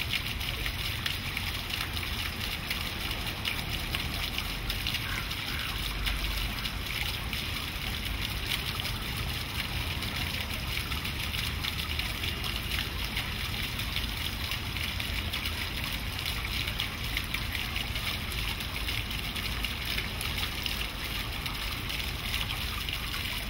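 Small garden fountain's jet of water splashing steadily back into its pool, a continuous even splatter.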